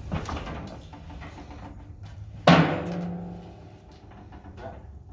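A heavy steel part clanging once, hard, about two and a half seconds in, and ringing for about a second as it fades, after some lighter metal clattering.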